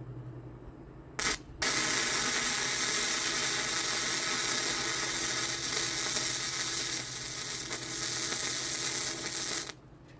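Flux-core wire welder (.035 flux-core wire on a 110 V supply) arc crackling and sizzling: a brief arc strike about a second in, then a steady weld bead running for about eight seconds that cuts off suddenly near the end.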